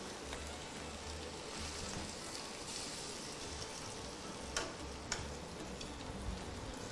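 Pot of curried pumpkin soup heating on the stove, giving a steady, faint sizzle as it starts to simmer, with two light clicks about two-thirds of the way through.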